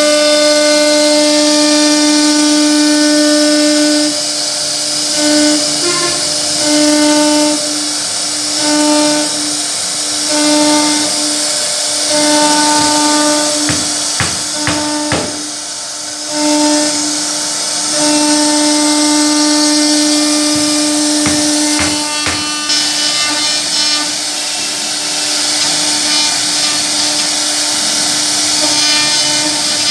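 CNC wood router spindle whining at a steady high speed while the bit carves a wooden panel. The pitch holds steady and the level swells and dips about once a second as the cutter moves in and out of the wood, with a hiss of cutting and a few sharp clicks.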